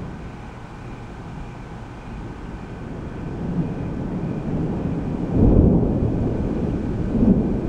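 Thunder rumbling continuously, low and deep, building from about halfway through to its loudest swell around five and a half seconds in.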